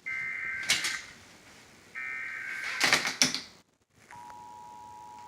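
Emergency Alert System test off a TV broadcast: two screeching digital SAME header bursts about two seconds apart, each with a short noisy flare. About four seconds in, the steady two-tone EAS attention signal begins.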